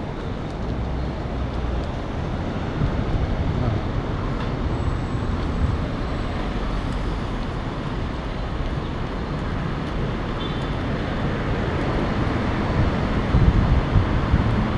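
Steady road traffic noise from cars on a multi-lane road, with a few louder swells near the end as vehicles pass close by.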